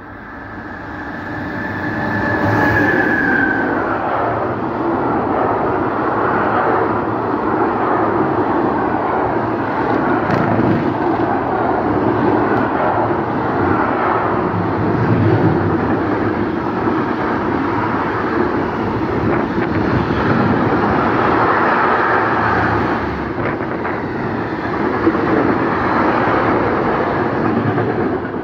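Electric freight train, a BB 27000 locomotive hauling autoroute-ferroviaire wagons loaded with lorry trailers, passing at speed: a falling whine as the locomotive goes by about two seconds in, then a long steady rumble of wagons rolling on the rails that drops away suddenly at the end as the last wagon clears.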